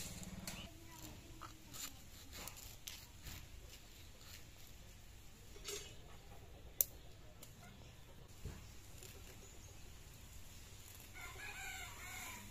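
A rooster crows near the end, over faint chicken clucking. Earlier there are scattered light clicks and taps of a curved blade cutting vegetables, with one sharp click about seven seconds in.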